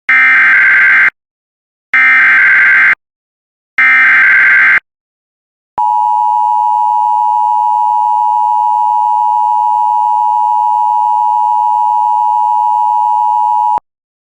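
Emergency Alert System SAME header: three bursts of warbling data tones, each about a second long, about two seconds apart. Then the EAS attention signal, a steady two-tone alarm, sounds for about eight seconds and cuts off abruptly.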